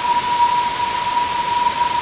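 Waterfall water rushing in a steady, even hiss, mostly high-pitched with little low rumble. A steady high tone near 1 kHz runs under it.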